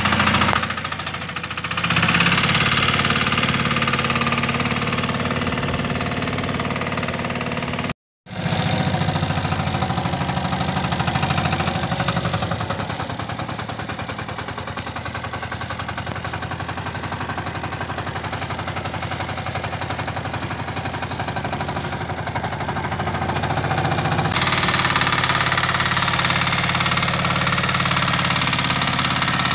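Shrachi mini power tiller's engine running steadily while it pulls a loaded trolley. The sound cuts out for a moment about eight seconds in.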